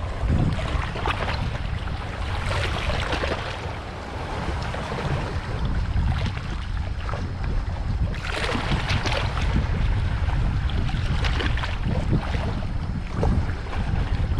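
Wind buffeting the microphone over the rush of water, with a constant low rumble and stronger gusts or splashes about two seconds in and again around eight to nine seconds in.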